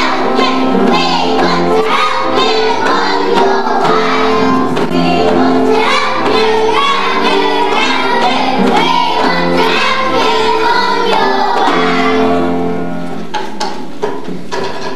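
Young children singing together in a school hall, over an instrumental accompaniment of held notes. The song stops about twelve seconds in, and a few scattered knocks follow.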